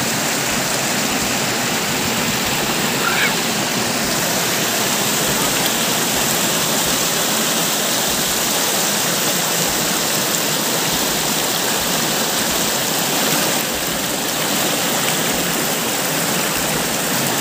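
Shallow river water rushing steadily over a low rock cascade, a close, even rush of white water.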